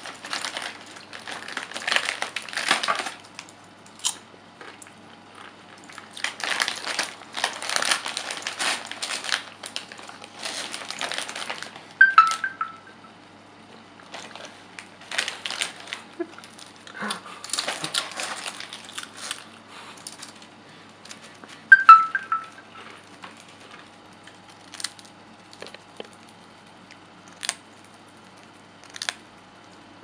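Potato chip bag crinkling in repeated bursts as a hand reaches in and a budgerigar pokes into it. Two short high tones, about ten seconds apart, are the loudest sounds, and a few light clicks come near the end.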